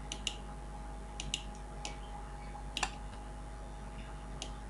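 Faint, scattered clicks of a computer mouse, about seven of them at uneven intervals, over a steady low electrical hum.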